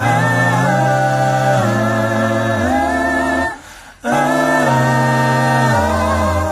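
A cappella vocal group singing held chords in close harmony over a low bass voice, breaking off briefly for a breath about three and a half seconds in.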